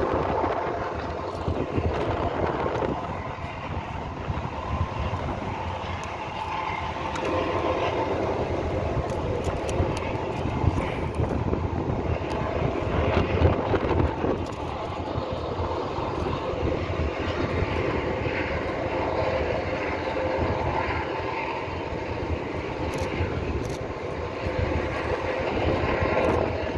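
A steady engine drone with a continuous rumble underneath, holding level throughout.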